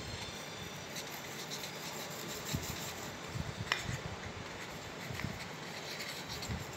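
A felt-tip water-colour pen rubbing and scratching on paper during handwriting, with a sharp click a little past halfway.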